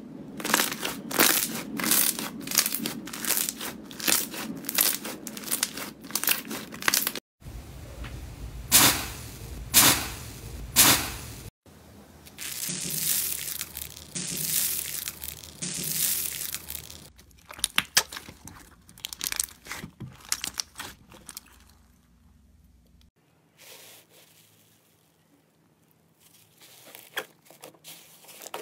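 Hands squishing and pressing slime in a run of short clips, making sticky popping and crackling clicks. There are a few loud single pops near the middle, then a dense crunching crackle as a hand presses into slime covered in foam beads. After a quiet few seconds, crackling picks up again as a hand works fluffy rainbow slime near the end.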